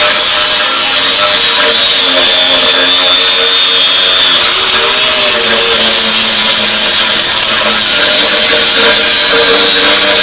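Angle grinder running steadily under load as its disc grinds into a rusty steel bracket welded to a tractor frame. There is a high whine under a loud hiss of disc on metal, and the pitch shifts slightly about midway as the pressure changes.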